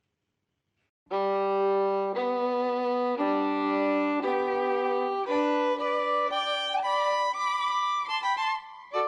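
Violin music starting suddenly about a second in after near silence: long bowed notes changing about once a second, often two notes sounding together.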